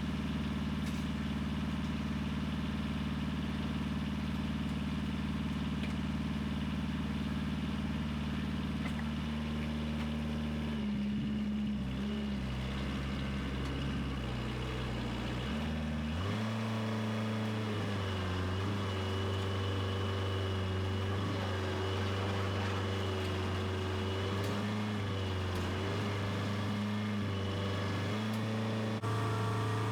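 Wood-Mizer LX25 sawmill's engine running steadily; about halfway through its pitch shifts, and a wavering higher tone rides above it for the rest.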